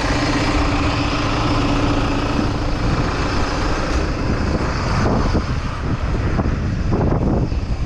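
Heavy diesel engines running: the tow truck and farm tractors idling, with a steady hum that fades after about two seconds. From about five seconds in the sound thins out and turns uneven.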